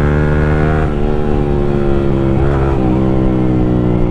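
Yamaha R15 V3's single-cylinder engine running steadily under way, its note shifting slightly with the throttle about a second in and again around two and a half seconds in.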